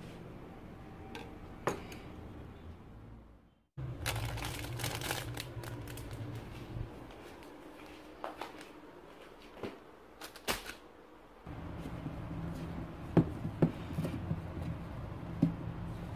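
Light handling noises: rustles and a few small clicks and knocks as food items are picked up. The sound cuts out completely for a moment about three and a half seconds in.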